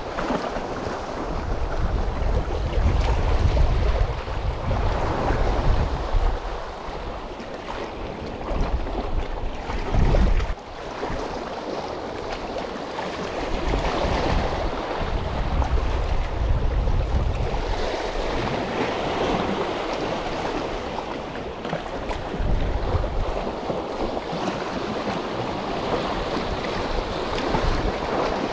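Sea waves washing and splashing among concrete tetrapod breakwater blocks, with gusts of wind rumbling on the microphone now and then.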